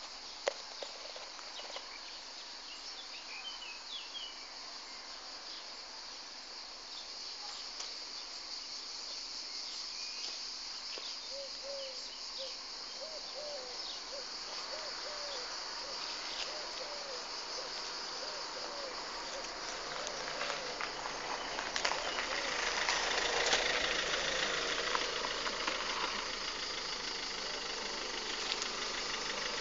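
Insects chirring steadily in a high band. In the second half a car drives up and stops with its engine running.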